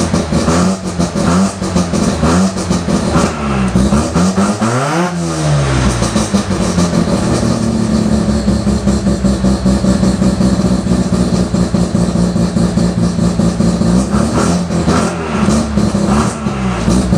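Full-bridgeport Mazda rotary engine on a Weber 50 DCOE carburettor, running steadily; around five seconds in and again near the end its pitch sags and swings back up as the throttle is jabbed. On a quick jab it bogs, a lean stumble on tip-in.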